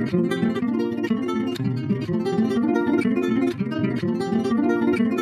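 Background music: acoustic guitar, quickly plucked notes.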